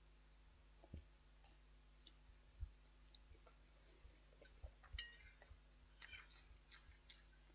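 Near silence with a few faint, scattered clicks and taps from eating: a fork on the meal pot or plate, and chewing.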